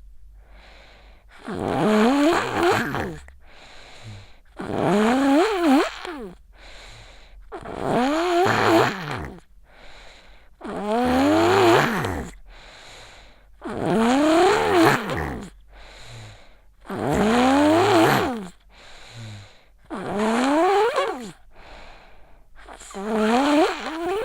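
A sick child snoring in sleep: eight loud snores about every three seconds, each falling in pitch, with quieter breaths between them.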